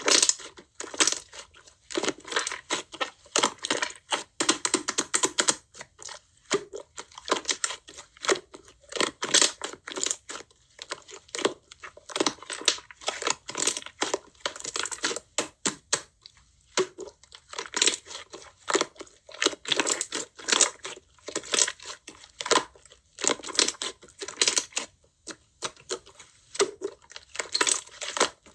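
Slime being squished, pressed and stretched by hand, giving dense, irregular sticky clicks, crackles and pops.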